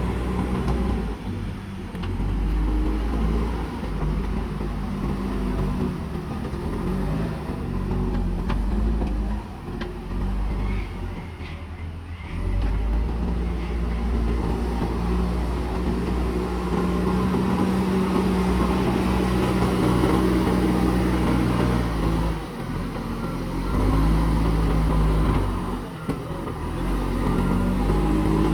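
Backhoe loader's diesel engine running, its revs rising and falling as it works.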